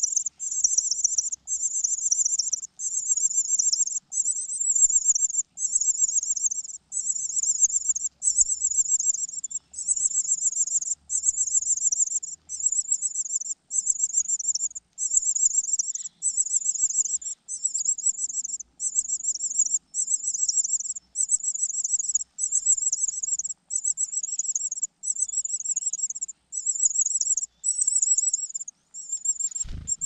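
Cuckoo chick begging for food: a high, thin, rapid trill of calls repeated in short bursts about once a second, on and on, stopping just before the end.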